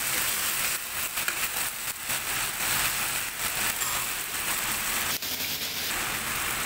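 Kung pao chicken and its sauce sizzling in a non-stick frying pan over a gas flame, with a splash of water just added: a steady crackling hiss.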